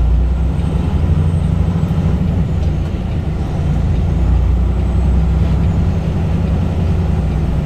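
Peterbilt 579 semi truck's diesel engine running steadily, a low, even drone heard from inside the cab.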